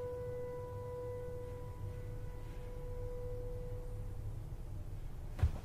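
Horror background score: a ringing bell-like tone fading out over about four seconds above a low rumbling drone, then a single low thud near the end.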